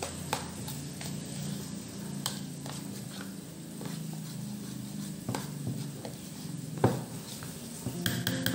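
Thick cake batter being stirred by hand in a plastic bowl, a soft wet mixing sound with scattered clicks of the utensil against the bowl, the loudest about seven seconds in.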